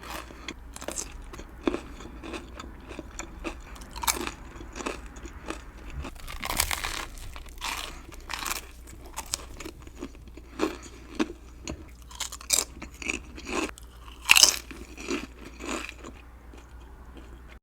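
Close-miked eating: irregular crisp crunches of jalapeno chips and a tuna sandwich being bitten and chewed, with the loudest crunch about three-quarters of the way through.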